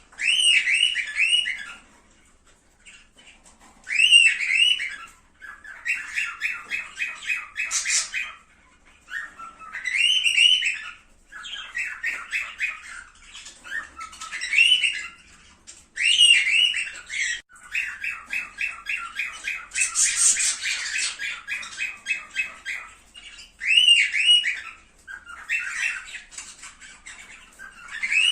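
Cockatiels calling and chattering in repeated bursts of warbled squawks, some broken into fast runs of rapid notes, with short pauses between bursts.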